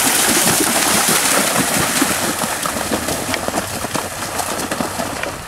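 A horse cantering through shallow water, its hooves splashing in quick repeated strokes, growing fainter near the end as it moves away.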